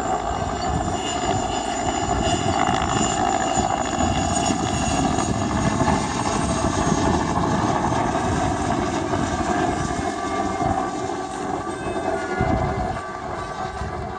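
Helicopter flying past overhead: steady rotor and engine noise with a held whine, easing off a little over the last few seconds as it moves away.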